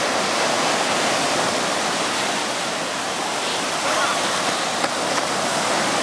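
Sea surf breaking and washing up the beach: a steady, loud rush of water, with faint voices of bathers underneath.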